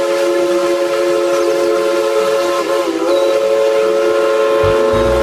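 Steam locomotive whistle blowing one long, steady chord of several notes, which wavers briefly about three seconds in. A low rumble comes in near the end.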